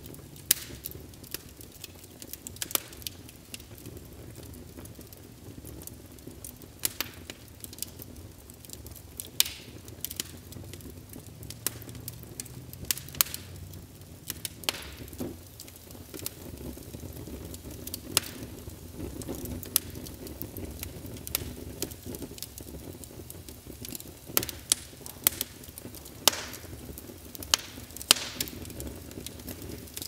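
Fire crackling: irregular sharp pops and snaps over a steady low background.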